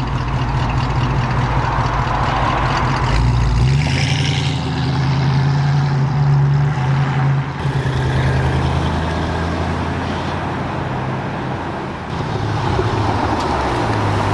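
V8 car engine running loud and revving, its note jumping up about four seconds in, shifting again partway through, and dipping briefly near the end before picking up again.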